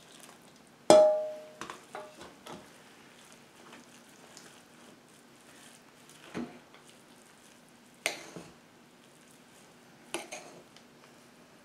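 A utensil knocks against the mixing bowl with a short ringing clink about a second in, then a few softer knocks and scrapes while the moist cornbread dressing is stirred.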